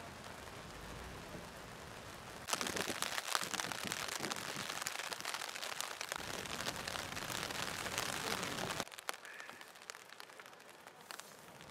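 Steady rain falling and pattering, with many small drop ticks; it grows heavier about two and a half seconds in, then drops to a softer patter about nine seconds in.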